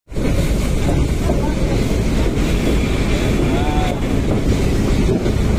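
Steady running rumble of the Nilgiri mountain train heard from inside a moving carriage, with wind buffeting the microphone.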